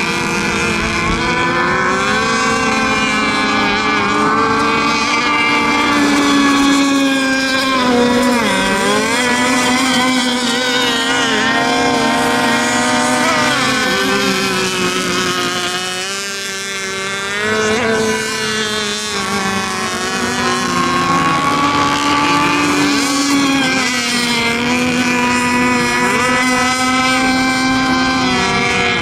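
Radio-controlled racing boats running at speed, a steady high-pitched engine note whose pitch wavers up and down as they run the course, with more than one boat heard at once. The sound dips briefly about halfway through, then picks up again.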